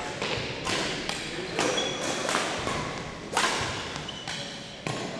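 Badminton rackets striking the shuttlecock in a doubles rally: six sharp cracks roughly a second apart, each echoing in a large gym. A couple of short high squeaks from sneakers on the hardwood floor come between the hits.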